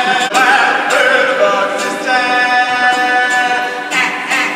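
Live singing: a voice holding long, sustained notes.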